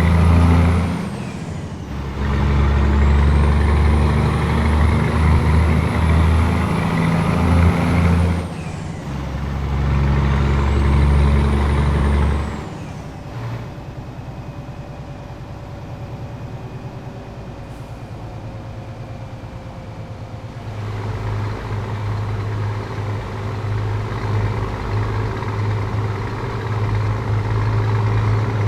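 Scania 500S truck's 13-litre inline-six with a straight-through exhaust, revved hard three times, a high whistle rising and falling with each rev. It drops to a steady low idle about halfway through, and the idle grows somewhat louder near the end.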